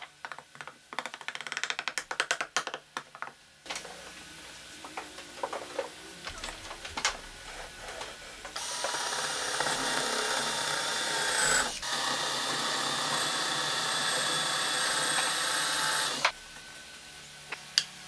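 A small hammer tapping on a wooden frame in a quick run of light strikes, followed by scattered knocks. Then a cordless drill boring into wood runs steadily for about eight seconds, with a brief break partway, and stops.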